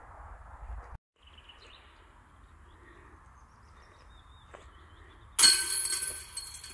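A disc golf basket rings out loudly about five seconds in as a putted disc strikes it: a sudden metallic crash of chains and metal that rings on and fades over about a second. Before that, only soft outdoor ambience with a few faint bird chirps.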